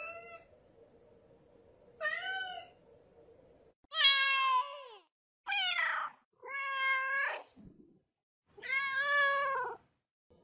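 Domestic cat meowing: six separate drawn-out meows, each under a second, the loudest about four seconds in.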